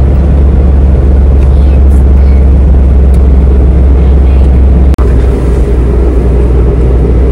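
A car's engine and road noise heard inside the cabin while driving: a loud, steady low rumble. It breaks off in a brief click and dropout about five seconds in, then carries on.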